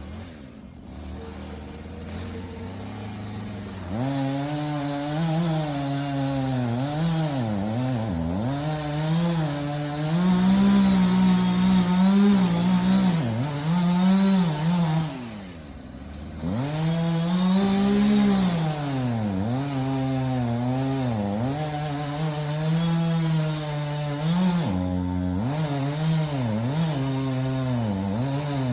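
Gas chainsaw cutting into a dead ash tree. It runs slower for the first few seconds, then revs up about four seconds in, its pitch repeatedly sagging and recovering under load in the cut, with a brief let-off about halfway through before it cuts again.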